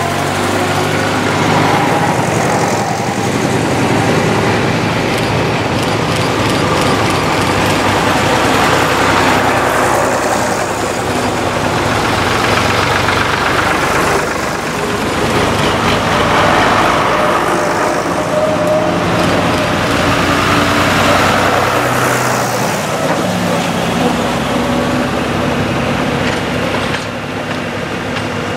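A line of vintage and classic tractors, among them a grey Ferguson and a blue Ford, driving past one after another with their engines running steadily; the sound swells as each one comes close and eases as it goes by.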